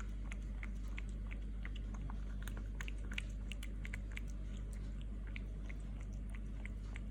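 A cat chewing and biting its food: a run of small, crisp, irregular clicks, several a second, over a steady low hum.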